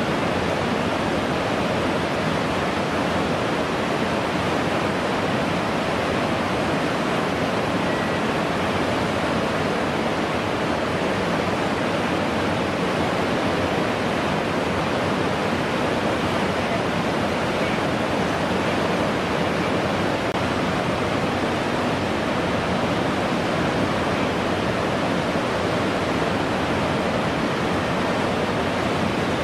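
Whitewater rapids of a canoe slalom course rushing, a steady even noise with no breaks.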